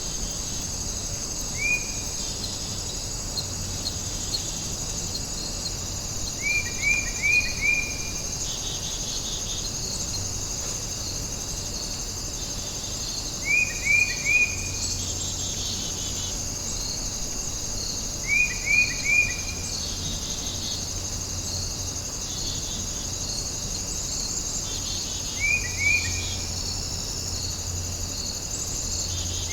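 Warm-afternoon outdoor ambience: a steady high insect chorus, with a bird calling over it every five to seven seconds in quick groups of two to four short falling notes. The bird calls are the loudest sounds.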